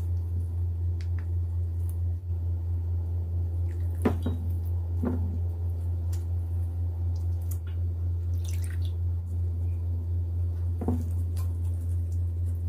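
Thick pastes and syrup being scraped and dropped into a stainless steel mixing bowl: wet squishy sounds and a few sharp knocks of utensils on the bowl, over a steady low hum.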